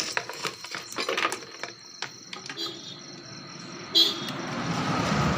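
Several small sharp clicks, then a short horn toot about four seconds in, followed by a vehicle's noise swelling as it passes by.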